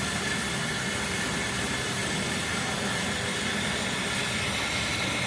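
Steady mechanical noise: an even hiss with a low hum and a few faint steady tones, like a motor or engine running without change.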